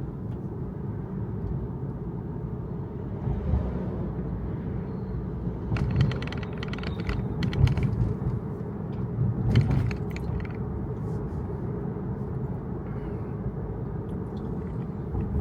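Steady low road and tyre rumble inside a Tesla's cabin as the electric car drives slowly, with no engine note. A few short sharp noises come about six, seven and a half, and ten seconds in.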